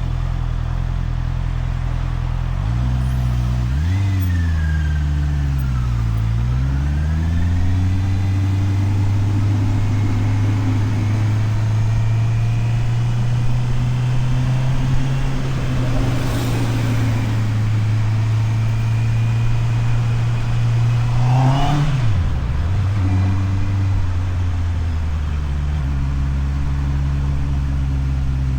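Motorcycle engine ticking over, then pulling away about three seconds in, its pitch rising and falling through gear changes before running steadily at cruise. Around two-thirds of the way through it revs up briefly and drops, then settles back to a steady low note near the end.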